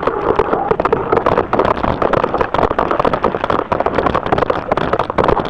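Loud, crackly rumble of wind buffeting and handling noise on a phone's microphone as the phone is moved and tumbled about close to clothing.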